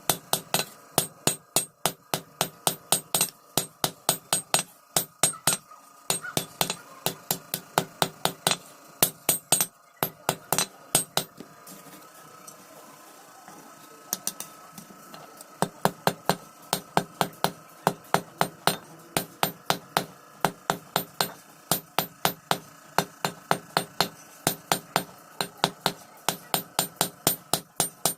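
Blacksmith's hammer forging iron on an anvil, striking about three times a second with a ringing note after each blow. The hammering stops for a few seconds near the middle, then picks up again at the same pace.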